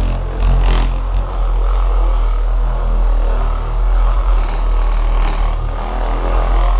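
Electric orbital polisher running steadily with its foam pad buffing liquid carnauba wax off a motorcycle's painted trunk.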